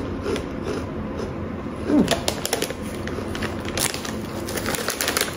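Crunchy corn snack being bitten and chewed: a run of sharp crunches, thickest from about two seconds in.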